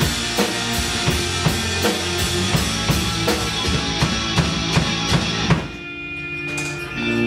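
Drum kit played in a steady rock beat, about three hits a second, over a recorded rock song with guitar. The drums stop about five and a half seconds in, leaving the song playing on its own.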